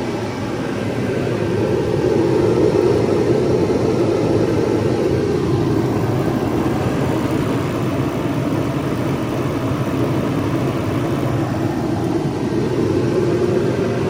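Mr. Heater MHC60FAV forced-air propane heater running with its burner lit, the fan blowing hot air and the flame making a steady, even rush.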